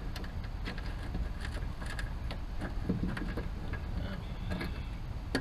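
Scattered light metallic clicks and ticks of hand tools working a rusted bolt loose from a jon boat's hardware, over a steady low rumble.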